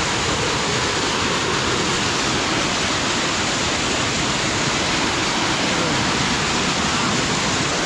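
Small waterfall cascading down a rock chute into a pool: a steady, unbroken rushing of falling water.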